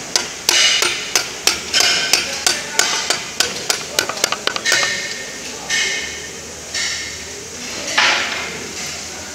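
Metal tool tapping the reverse-gear pin into the housing of a Mercedes G221-9 truck gearbox: a quick run of sharp, light taps, about three a second, for the first four seconds or so. After that come four longer, rougher noises about a second apart.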